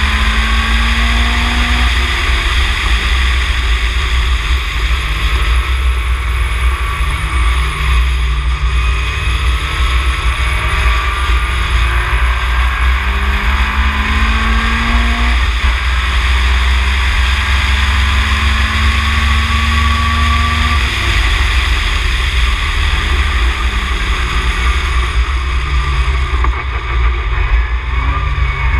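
Ginetta G20 race car's engine heard from on board at speed, its pitch climbing and then dropping back several times as it pulls through the gears. A heavy low wind rumble from the open cockpit runs under it and is the loudest part.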